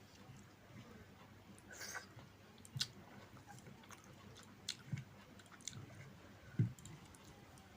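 A person chewing a mouthful of food close to the microphone, with scattered wet mouth clicks and a few soft knocks.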